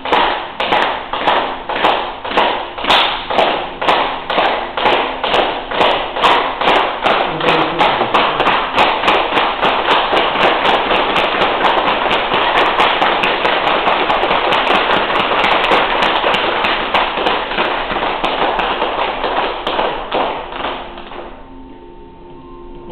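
Hands clapping in a steady rhythm, about two to three claps a second, speeding up until the claps run together into a continuous patter, then stopping suddenly near the end.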